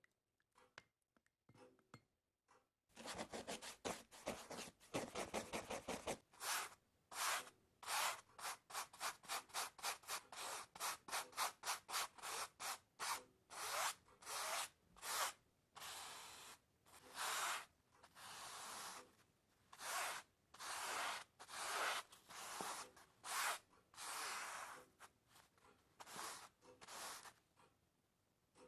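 Repeated rubbing strokes on a rough surface: a fast run of short strokes starting about three seconds in, then separate strokes about two a second, a few of them drawn out longer, stopping shortly before the end.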